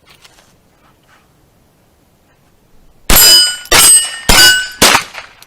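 .22 rimfire rifle of the 10/22 type firing four quick shots at steel targets, about 0.6 s apart, starting about three seconds in. Each shot is followed by a short metallic ring, and its pitch changes from shot to shot as different steel plates are hit.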